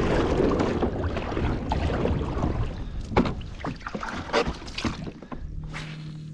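Shallow water sloshing around legs wading beside a plastic Hobie pedal kayak, then a scatter of knocks and clunks as he climbs aboard and gear bumps the hull.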